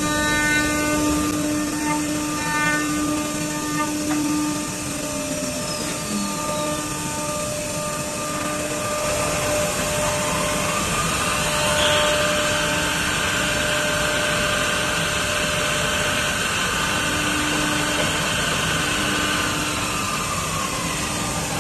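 Automatic door-lock drilling machine running, with a steady whir of motors. A spindle tone winds down about five seconds in, and another spins up about eleven seconds in, holds steady, then winds down near the end.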